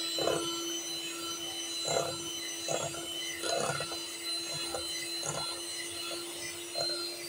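Electric hand mixer running at a steady speed, its beaters whisking egg yolks and sugar in a glass bowl. Short irregular scrapes and clatters come from the beaters in the bowl over the motor's steady hum.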